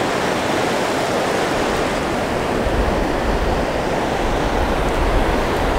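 Surf washing in and out over shallow water, a steady wash of noise, with a low rumble coming in about halfway through.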